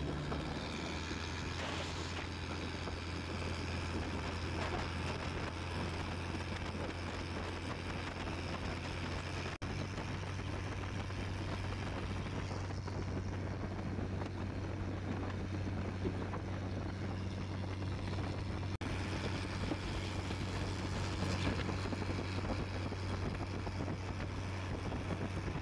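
Small boat engine running steadily at constant speed, a low even drone with wind and water noise over it.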